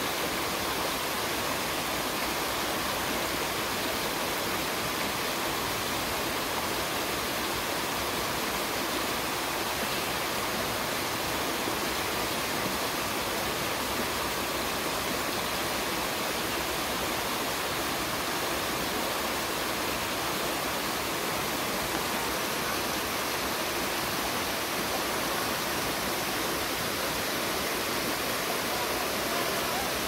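Small mountain waterfall cascading over boulders into a pool: a steady, unbroken rush of falling and churning water.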